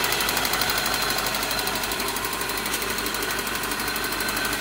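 Toyota Soluna's four-cylinder petrol engine idling steadily and evenly. It runs smoothly on all cylinders now that a dead number-2 spark plug wire has been replaced, with no misfire.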